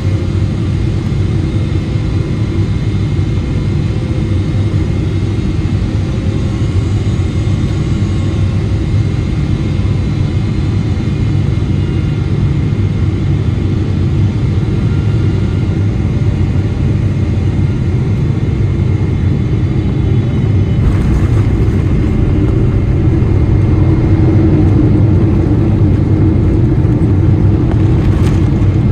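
Cabin noise of a Boeing 777-300ER on final approach, heard beside its GE90-115B engine: a steady low rumble of engine and rushing air with faint steady whine tones above it, growing a little louder over the last few seconds as the jet nears the runway.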